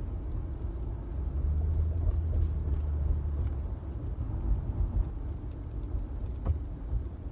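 Car driving, heard from inside: a steady low road and engine rumble that swells for a couple of seconds about a second in, with one sharp click near the end.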